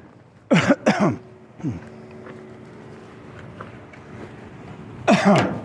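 A man clearing his throat: two short rough bursts about half a second in and another near the end, with a faint steady hum between them.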